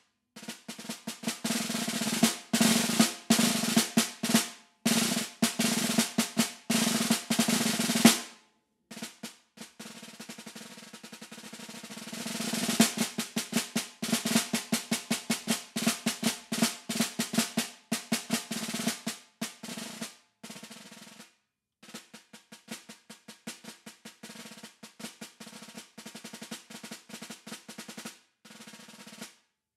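Concert snare drum with the snares on, played solo with wooden sticks: fast rolls and accented strokes, loud passages alternating with soft ones, broken by a few short pauses.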